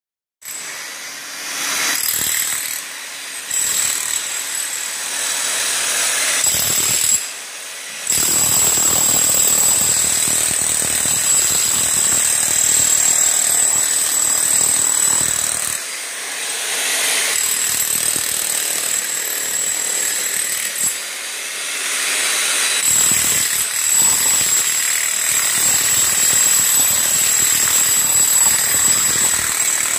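Corded electric demolition hammer chiselling into the packed soil of a plumbing trench: a continuous rattling hammer with a thin high whine. It runs in long stretches with a few short breaks.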